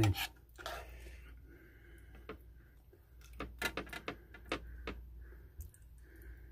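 Metal spoon tapping and scraping on a plate while spooning meat sauce onto toast: a scatter of light clicks, busiest around the middle.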